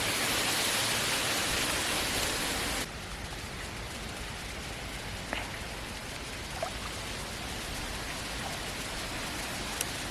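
Steady hiss of outdoor noise that drops suddenly in level about three seconds in, with a few faint ticks later on.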